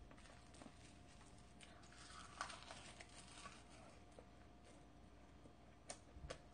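Faint crackly chewing of a bite wrapped in roasted dried seaweed (gim), strongest for a couple of seconds about two seconds in, with a few soft clicks near the end.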